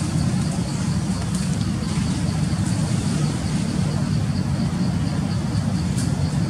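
Steady low rumble of a motor vehicle's engine running, with a faint high-pitched ticking repeating about three times a second.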